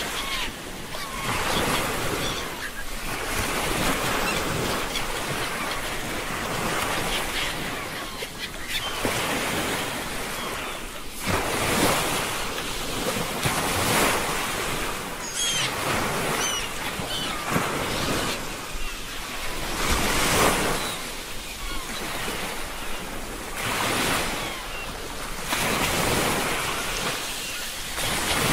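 Ocean waves washing in, the surf swelling and falling away every few seconds.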